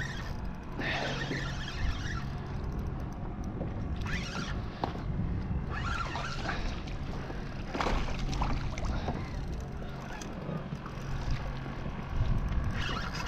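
Water sloshing and splashing around a plastic sit-on-top kayak while a hooked fish is fought, with scattered knocks and a steady low hum that stops and starts several times.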